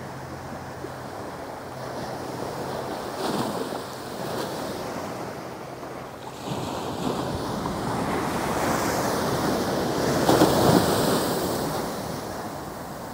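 Ocean surf breaking and washing up a sandy beach, with wind on the microphone. The wash swells, peaks about ten seconds in as a wave runs up the sand close by, then eases.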